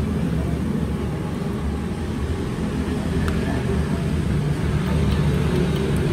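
A steady low rumble, with a few faint clicks of small metal parts being handled.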